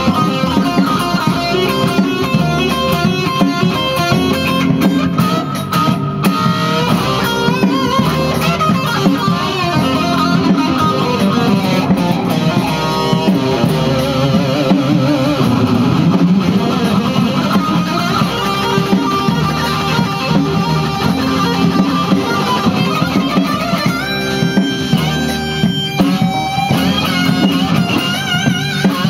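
Electric guitar playing an improvised funk-fusion solo: a continuous stream of single-note lines with bent and vibratoed notes.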